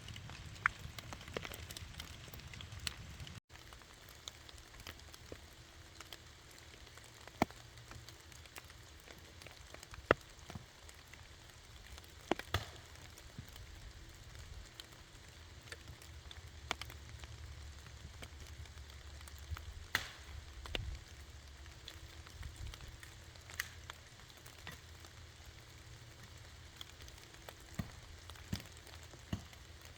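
Wood campfire crackling, with scattered sharp pops every second or so, over a soft steady hiss of rain.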